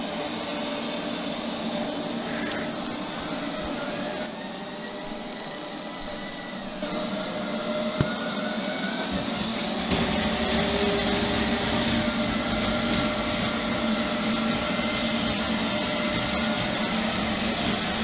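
Neato robot vacuum running, with a steady motor and brush whine that carries several steady tones. There is a sharp click about eight seconds in, and the sound gets louder about ten seconds in.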